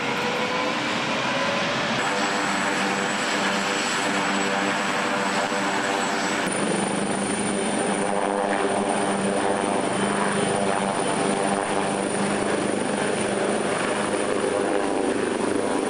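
A helicopter running close by as it lifts off and hovers just off the ground: steady, loud rotor and engine noise with a thin high turbine whine. The sound shifts abruptly about two seconds in and again about six seconds in.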